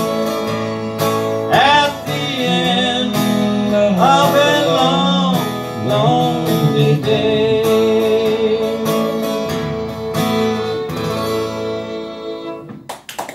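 Closing bars of a slow folk love song on acoustic guitar and fiddle, with a man singing. It ends on a long held fiddle note with vibrato that dies away about twelve seconds in, and clapping starts right at the end.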